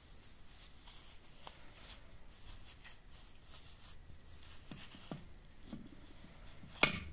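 Gloved hands handling a steel rivet-heading tool: faint rubbing and a few small knocks, then one sharp metallic clank with a brief ring near the end.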